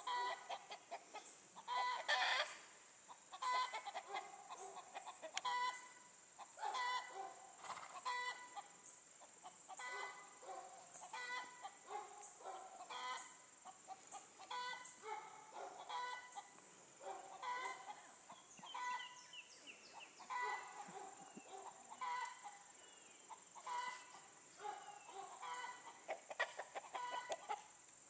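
Chickens clucking, short calls repeating every second or two, with a steady high-pitched whine behind them.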